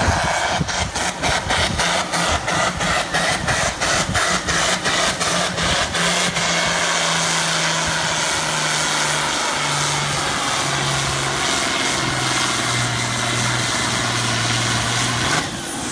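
Diesel farm tractor's engine at full throttle pulling the sled, pulsing about three times a second at first, then a steady drone that sinks in pitch in steps as the engine lugs down under the growing load. It cuts off suddenly near the end, when the throttle is let off at the end of the pull.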